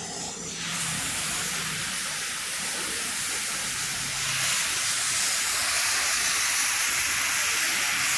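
Steady hiss of rain falling on a wet street, setting in just under a second in.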